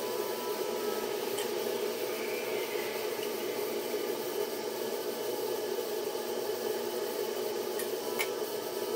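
A steady hum, with faint rubbing and a few light ticks as a fine-tip marker is drawn along a combination square across a small piece of sheet metal.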